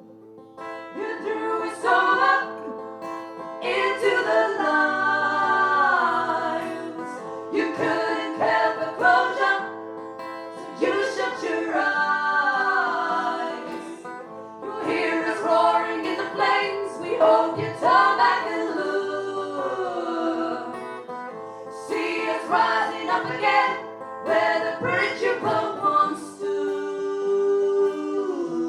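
Live song: singing over plucked acoustic guitar.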